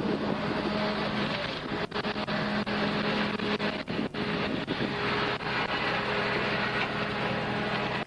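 A vehicle engine running steadily with a constant low hum, under wind noise on the microphone.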